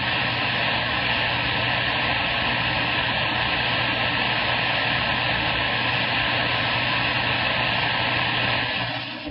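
CB radio static: a loud, steady hiss from the receiver with a low hum under it, starting suddenly and cutting off at the end, as an open channel or an unmodulated carrier comes through.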